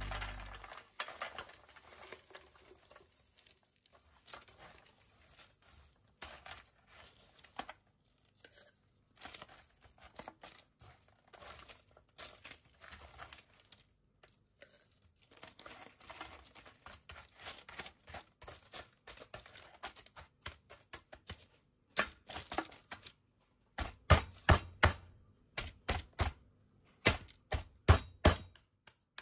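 Parchment paper crinkling and a spoon scraping and dropping sticky granola mixture of oats, nuts and raisins into a lined metal baking tray. In the last third, quick groups of thuds as the end of a wooden rolling pin tamps the mixture down into the tray.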